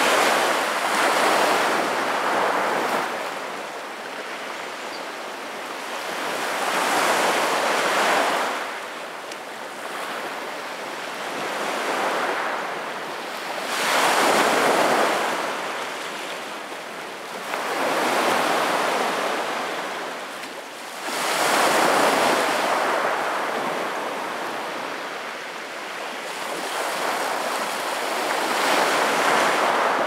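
Small sea waves breaking and washing over a pebble beach, the surf swelling and fading away about every seven seconds.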